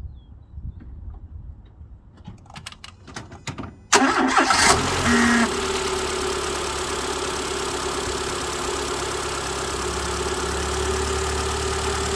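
A few clicks, then about four seconds in the Renault Twingo GT's engine cranks, catches and settles into a steady idle on freshly fitted spark plugs and a new air filter.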